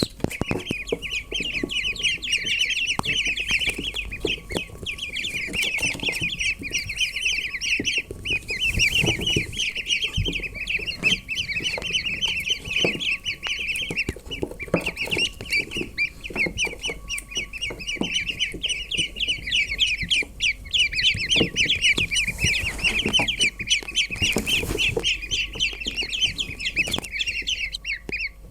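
A brood of ducklings peeping nonstop, many short high chirps overlapping into a continuous chorus.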